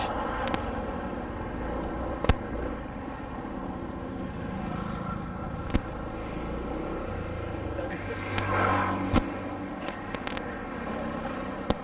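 Vehicle engine running steadily, with a few sharp clicks and a brief swell in sound about eight seconds in.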